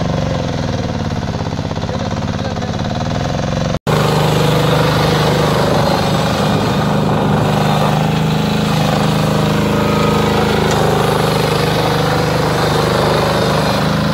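Engine of a small ride-on utility machine running steadily under way. The sound cuts out for an instant about four seconds in, then carries on at a similar steady pitch.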